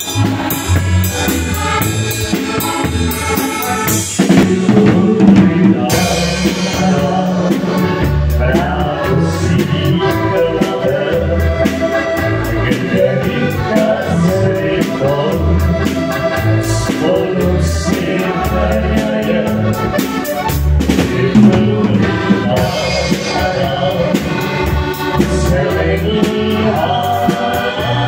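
Live folk band playing a tango: a Styrian button accordion (heligonka) with a drum kit and cymbals, and singing over it.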